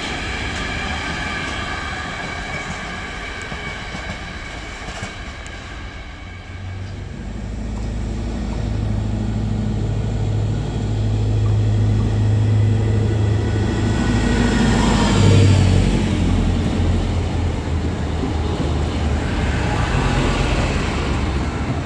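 Freight train of tank wagons rolling past with a steady high ringing from the wheels, fading away over the first few seconds. Then a diesel Minuetto multiple unit's engines hum and grow louder as it runs into the station, loudest about two-thirds of the way in and staying loud as it passes close.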